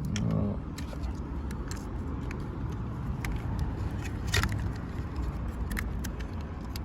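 Scattered sharp plastic clicks and light rattling as wiring connectors are handled and plugged back into a truck's master power-window switch, the loudest click about four and a half seconds in, over a steady low background rumble.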